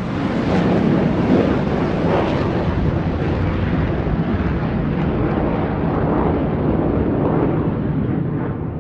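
Aircraft taking off: a loud, rough, steady rumble of engines at takeoff power, its higher hiss slowly dulling.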